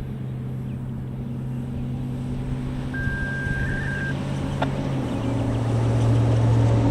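A motor vehicle's engine running with a steady low hum that grows louder, its pitch stepping down about five seconds in.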